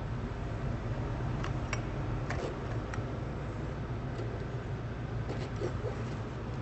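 A steady low hum with a few small clicks and knocks, from the phased array probe's cable connector being unplugged from its acquisition unit.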